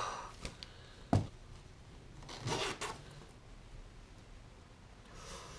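Rustling of a winter jacket and gloves as they are handled. There is a single knock about a second in and a short burst of rustling a little after two seconds.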